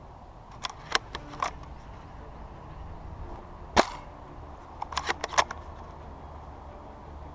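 Airsoft guns firing: a quick string of sharp cracks about a second in, one louder single shot near the middle, and another rapid cluster of cracks about five seconds in.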